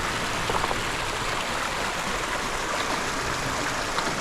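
Creek water rushing steadily, with a few faint, brief ticks.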